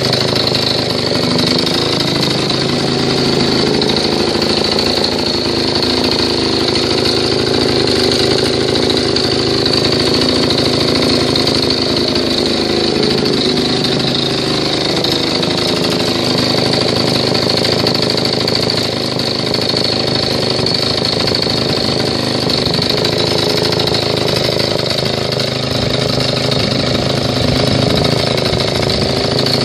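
Vintage J.A.P. engine-driven water pump running steadily at a constant speed, the engine under load from the pump.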